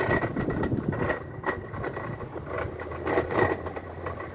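Consul Jasmine washing machine on its spin cycle: a steady running rumble with a high whine and irregular knocking and rattling. This is the strange spin noise that the repairman rules out as the bearing or transmission and thinks probably comes from the drain pump.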